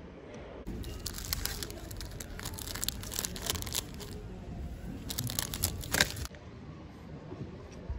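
Crinkling wrapper of a KitKat bar being handled and torn open: clusters of crackling, starting about a second in and cutting off suddenly about six seconds in.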